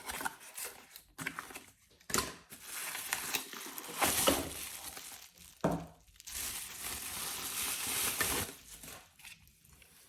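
Crinkling, rustling packaging as a new replacement battery pack is handled and unwrapped, in two longer stretches with a few short clicks.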